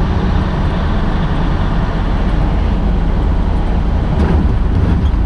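Tractor-trailer cab on the highway: a steady low engine drone with road and tyre noise, unchanging throughout.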